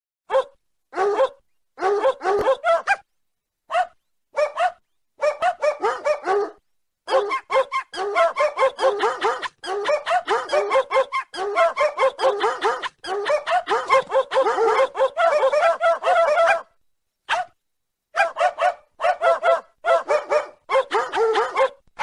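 A dog barking rapidly and repeatedly in runs of several barks a second, broken by a few short dead-silent gaps: a recorded dog-bark ringtone.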